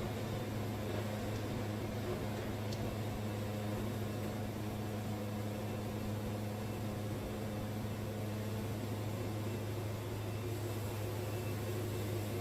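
Wood-Mizer portable sawmill's engine running steadily with a low hum, not cutting.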